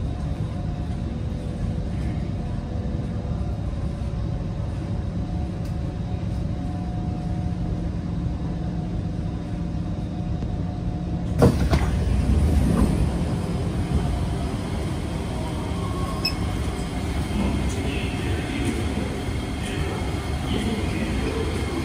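Kawasaki C151 metro train standing at a platform, its equipment giving a steady hum with a few held tones. About eleven seconds in a sudden thump marks the doors opening, and busier, more open station noise comes in.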